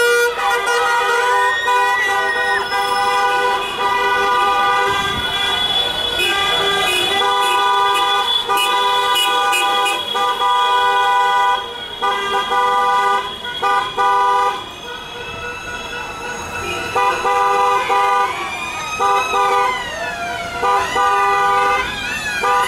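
Car horns honking in long, held blasts, two pitches sounding together, breaking off and starting again every second or two: honking in celebration from a passing column of cars. Near the end a wailing tone sweeps up and down like a siren.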